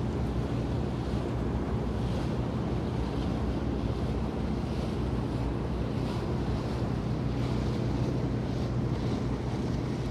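Harbour ambience: water lapping and wind over a steady low drone of boat engines, with small splashes now and then.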